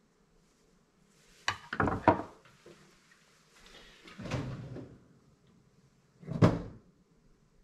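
Workshop handling knocks and clunks: a small carburetor is set down on the workbench and other things are moved about. There is a quick cluster of knocks about a second and a half in, a duller clunk near four seconds, and a single sharp knock about six and a half seconds in.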